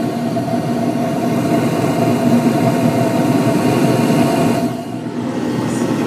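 York gas furnace running just after ignition: the gas burners firing and the draft inducer motor running, a steady hum over a rushing noise.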